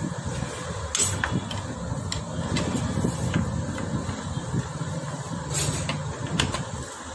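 A running engine in the background, a steady low rumble, with a few scattered sharp clicks and knocks.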